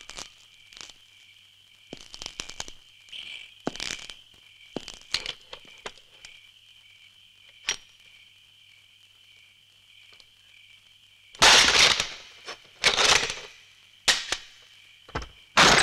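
Steady chirring of crickets at night with scattered small clicks and rustles. Then, about two-thirds of the way in, a few loud, harsh crashes come, each about a second long.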